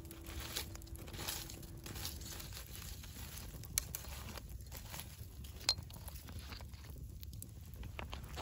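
Wood campfire crackling, with a few sharp pops scattered through it over a low steady rumble.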